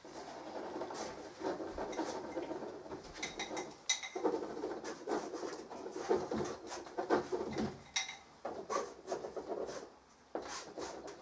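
Brushes and drawing tools rubbing and scratching over canvas and paper in irregular strokes, with a few sharp ticks among them.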